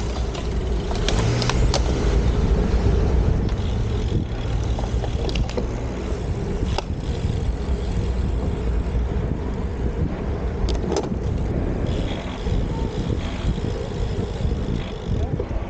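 Wind rushing over a camera microphone on a moving bicycle, a steady low rumble with scattered sharp clicks.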